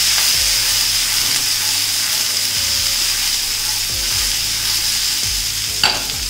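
Chopped green beans sizzling in hot oil in a frying pan as the pan is tossed, with a knock near the end.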